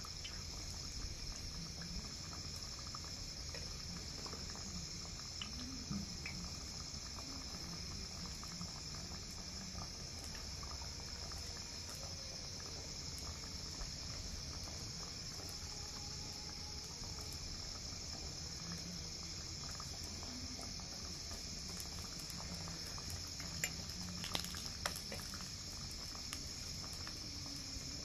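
A hand squelching and sloshing thick batter in a clay pot, mixing it by hand. A steady high-pitched insect chirring runs underneath, and a few sharp clicks come about three-quarters of the way in.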